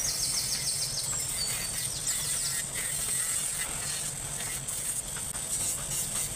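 Light handling clicks and rattles as a paper strip is pressed against the plastic disc on a small DC motor's shaft, with a quick run of ticks in the first couple of seconds. A steady high hiss lies underneath.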